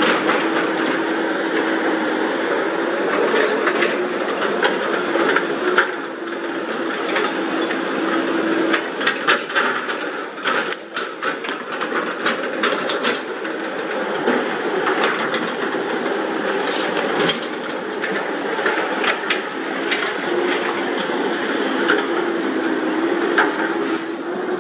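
Several Caterpillar hydraulic excavators working at once: diesel engines running steadily under load with a hiss, their note rising and falling a little, and scattered metallic clanks and knocks that come thickest a little before halfway.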